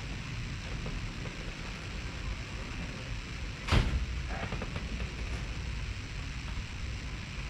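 Steady low rumble and hiss of background noise, broken by one sharp knock a little past the middle, followed by a few faint clicks.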